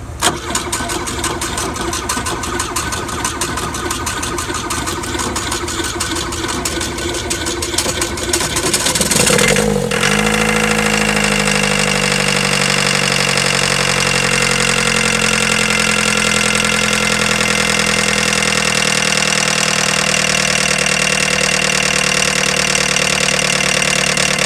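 1980 VW Dasher's 1.5-litre diesel engine being cranked on the starter for about nine seconds. It catches near ten seconds in, its speed dips, and it settles into a steady idle. The engine is being started after years of sitting, fed by a temporary fuel pump.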